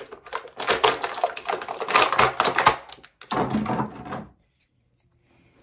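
Crinkling and crackling of an action figure's clear plastic packaging tray being handled and pulled apart, dense for about three seconds, with a shorter spell after. It stops a little over four seconds in.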